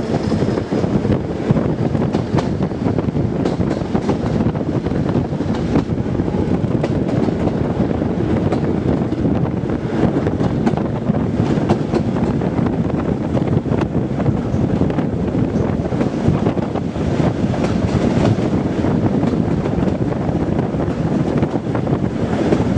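Class 207 'Thumper' diesel-electric multiple unit running steadily, its English Electric diesel engine and wheels on the rails making a continuous loud rumble, with wind buffeting the microphone.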